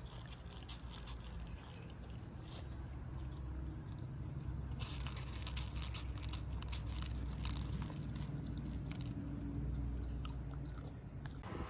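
Outdoor insect chorus, a steady high chirring like crickets, over a low rumble, with scattered small clicks and taps.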